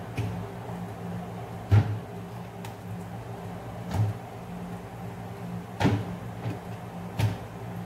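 Pieces of yellowfin tuna being laid into a cooking pot, giving a few sharp knocks a second or two apart, the loudest about two seconds in, over a steady low hum.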